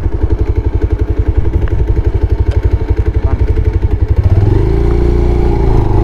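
Motorcycle engine idling with an even, rapid putter, then revving up about four seconds in as the bike pulls away.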